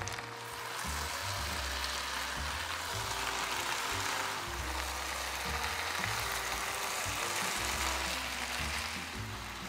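Food sizzling in hot oil in a frying pan, a steady crackling hiss, under background music.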